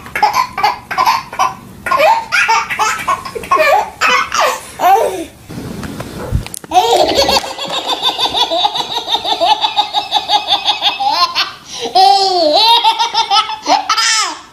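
Babies laughing hard: short bursts of giggles and belly laughs, then after a brief pause about six seconds in, a long run of rapid, breathless laughing and squeals.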